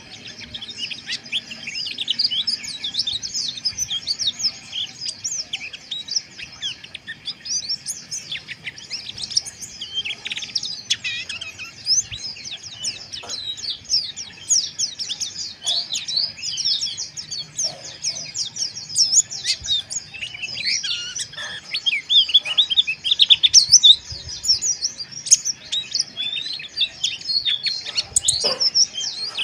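Several white-eyes (pleci) twittering at once: dense, rapid, overlapping high chirps with no pause, the rough 'ngeriwik' chatter.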